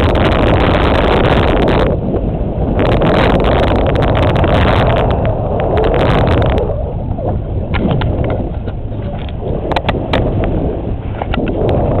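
Wind rushing over the microphone above the steady low rumble of a boat under way on open water. The wind noise drops briefly about two seconds in and eases again past halfway, leaving the rumble and a few light clicks.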